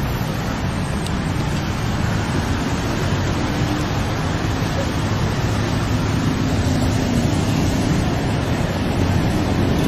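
Steady rumble of road traffic noise, with no distinct events.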